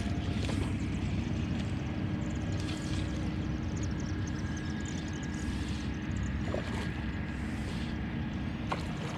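A hooked fish splashing at the pond's surface three times while being played on a fly rod, over a steady low rumble and a faint constant hum, with birds chirping throughout.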